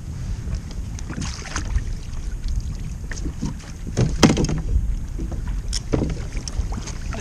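Wind rumbling on the microphone and water lapping against a plastic fishing kayak. Several sharp knocks sound over it, the loudest about four seconds in, as the landing-net handle and gear bump the hull while a hooked fish is brought alongside.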